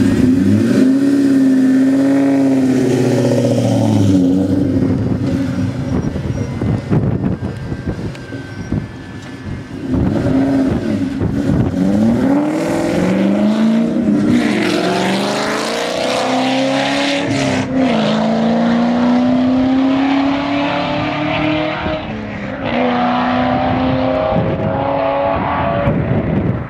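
2003 Ford Mustang Cobra's supercharged V8, fitted with a Kenne Bell 2.8H supercharger and a catted X-pipe exhaust, revving up and back down once, then accelerating hard away. The exhaust note climbs in pitch through the gears and drops back at each shift.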